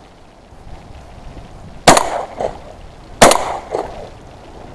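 Two shotgun shots about a second and a half apart, each followed by an echo about half a second later.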